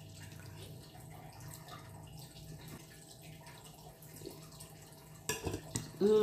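A few quiet seconds with faint handling sounds, then tom yum soup slurped loudly off a metal spoon near the end. A short hummed voice sound, falling in pitch, starts right at the end.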